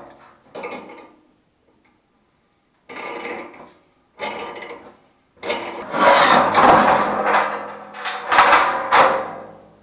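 Wrench turning a wheel puller on a rusted-on furnace blower wheel, with metal scraping and creaking as the motor shaft is forced out of the wheel's hub. A few short scrapes come in the first half, then two longer, louder ones in the second half.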